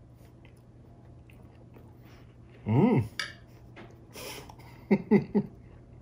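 Closed-mouth 'mmm' hums from a man chewing a mouthful of a heavily topped sweet pretzel. One longer hum that rises and falls in pitch comes about three seconds in, and three short hums come in quick succession near the end.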